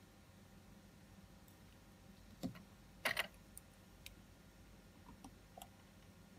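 Small metal clicks of tweezers and watch parts against a one-jewel wristwatch movement in a movement holder, as parts are fitted during reassembly. A tap, then a quick cluster of sharp clicks a moment later, the loudest, then a few faint ticks.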